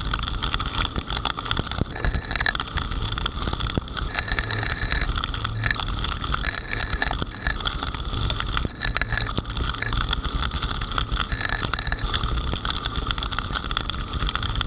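Heavy rain, a dense crackle of drops striking the camera, over the steady low rumble of a car driving on a wet road.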